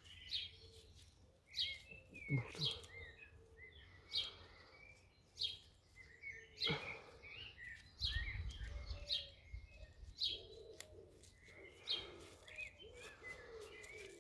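Small birds chirping faintly in short repeated calls, with a few light knocks and rustles of parts being handled.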